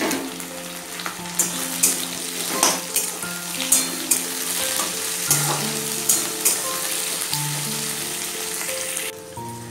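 Onions, garlic, ginger and green chillies sizzling in hot oil in a steel kadai, stirred with a spatula that scrapes against the pan several times. The sizzle drops away sharply shortly before the end.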